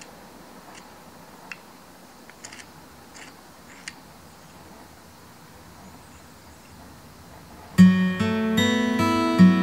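Faint, scattered ticks and light scrapes of a hand carving gouge paring shavings from old wood, a few cuts a second or so apart. Near the end, acoustic guitar music starts abruptly and is by far the loudest sound.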